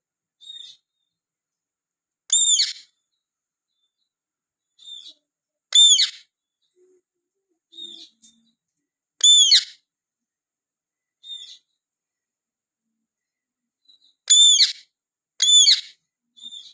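Rose-ringed (ringneck) parakeet giving shrill, arching calls, each under half a second, about every three to four seconds, with two in quick succession near the end and fainter short chirps in between.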